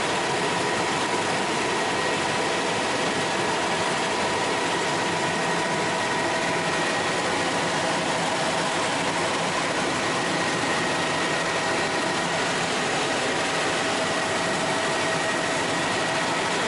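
Bell 206L4 LongRanger helicopter in steady cruise flight, heard from inside the cockpit: a steady whine of several held tones over an even rush of noise that does not change.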